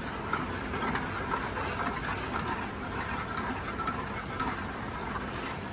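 Olive oil and butter melting in a warming skillet, heard as a steady hiss over the constant hum of a commercial kitchen.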